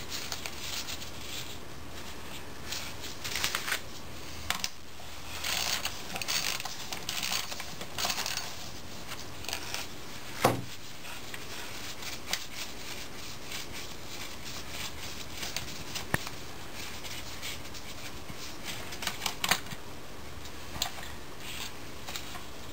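Light metallic clicks and scraping as small parts are handled inside an automatic transmission case while the parking pawl bracket and its bolts are worked loose. One sharper click comes about ten seconds in.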